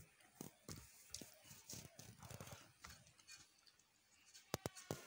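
Faint hand-eating sounds: fingers working rice on a steel plate and soft mouth clicks and smacks while chewing, with a few sharper clicks near the end.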